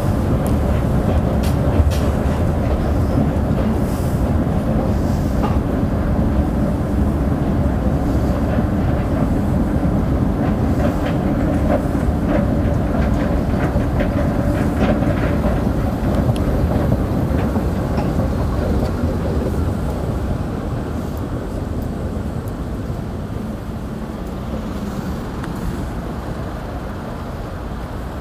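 Prague metro train running through a tunnel, heard from inside the car: a loud, steady rumble with scattered clicks from the wheels on the rails. The noise eases gradually over the last ten seconds or so.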